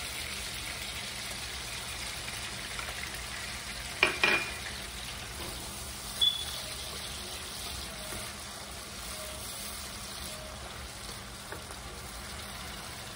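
Onions, tomato and peppers frying in oil in a skillet with a steady sizzle, stirred with a wooden spatula. Two sharp knocks about four seconds in and a lighter click a couple of seconds later.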